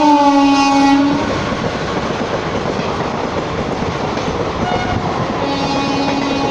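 WAP-4 electric locomotive's horn honking as it passes, falling in pitch and cutting off about a second in, followed by the rumble and clickety-clack of the express coaches rolling through. A steady horn-like tone starts up again near the end.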